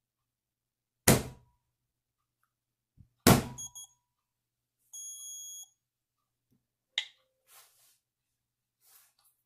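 Two sharp knocks about two seconds apart, test sounds for the Pluto trigger's sound sensor: the first arms it and the second sets it off. A short electronic beep follows the second knock, then a steadier high beep of about half a second, and a light click near the end.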